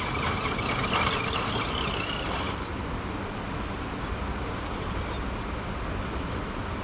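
Traxxas TRX-6 six-wheel RC rock crawler's electric motor and gears whining, wavering in pitch, for the first two and a half seconds as it crawls over rock, over a steady rushing background noise. A few faint clicks follow later.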